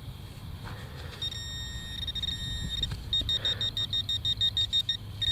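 Handheld metal-detecting pinpointer sounding a high steady tone, then beeping rapidly for about two seconds and going steady again as it closes in on a very shallow target in the dug plug.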